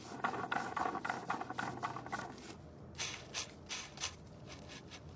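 Differential bearing of a Renault JR5 gearbox, out of the car, turning with a rough rhythmic clicking of about three to four ticks a second, then sharper, more widely spaced clicks after a break halfway through. It is the sign of a worn differential bearing, the gearbox oil already full of metal.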